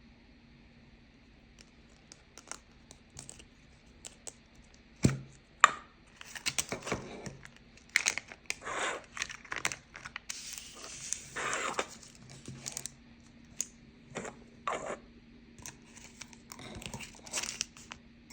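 Hands handling crinkly packaging, with tearing and crinkling that comes in bursts. There are scattered clicks and two sharp knocks about five seconds in, under a faint steady hum.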